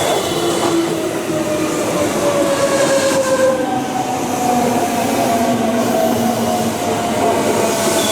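Electric commuter train pulling into the station and slowing down: its motors whine in several tones that slide slowly down in pitch over a steady rumble of wheels on rail.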